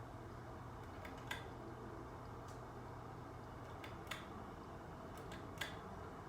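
Faint clicks of a ceiling fan's pull-chain switch, three or four of them, over a low motor hum that stops about four seconds in: the bladeless fan motor being run and switched off.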